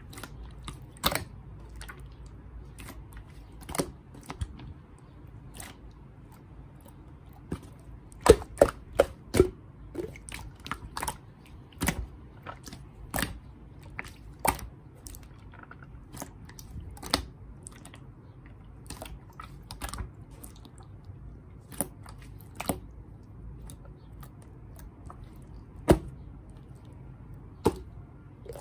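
Clear slime being pressed and stretched by hand, giving irregular sharp clicks and pops, with a quick run of them about eight to ten seconds in.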